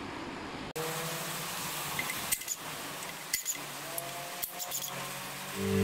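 A cordless drill spinning in two short, slightly rising whines as it works the oil-pan bolts on a Toyota 3UZ V8, with a few light clicks of the socket on the bolts. Music fades in at the very end.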